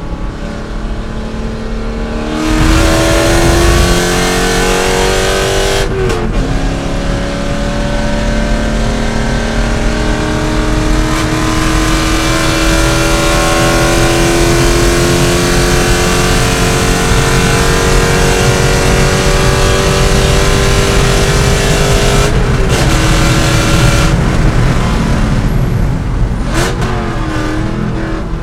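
C5 Corvette's V8 racing engine under hard acceleration. It goes to full throttle about two and a half seconds in, shifts up once about six seconds in, then pulls for a long stretch with the pitch slowly rising. About twenty-two seconds in it lifts off, and the revs rise and fall a few times near the end, over steady wind and tyre noise.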